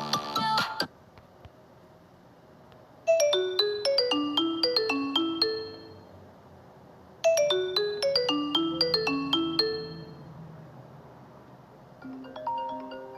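Mobile phone ringtones played back: a short tune of quick notes stepping downward in pitch plays twice, then a different, chiming tune starts near the end. The first second holds the end of a busier earlier tune.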